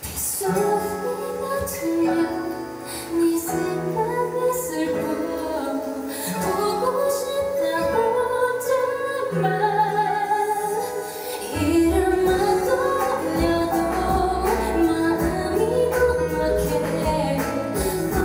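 A woman singing a slow melody through a handheld microphone over musical accompaniment. The music starts at the opening, and a deep bass part comes in about two-thirds of the way through.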